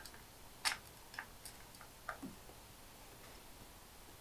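A handful of faint metal clicks as a screwdriver tip seats in and turns the adjustment screw of a 2D door hinge, the loudest a little under a second in and none after about two and a half seconds.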